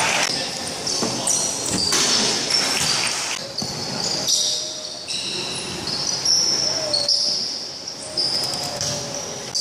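Indoor basketball game: sneakers squeak in short, high, repeated squeaks on the hardwood court, with a ball bouncing and players' voices calling out in the gym hall.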